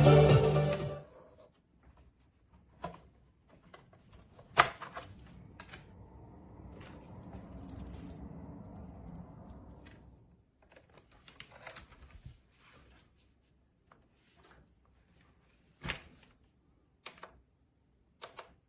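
Music stops about a second in, followed by faint scattered clicks and knocks, one sharper knock about four and a half seconds in, and a soft rustle for a few seconds in the middle.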